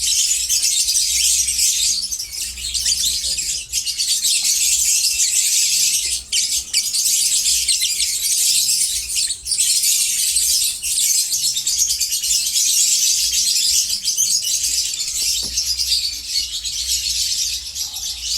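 A large number of lovebirds chattering and screeching together in a dense, continuous, high-pitched din, with a faint low rumble underneath.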